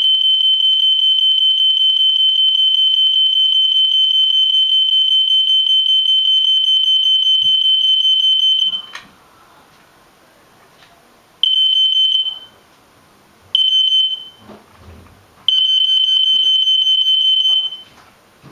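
Loud, high-pitched electronic alarm tone held steady for about nine seconds, then cut off and sounded again in three shorter blasts, the last about two seconds long.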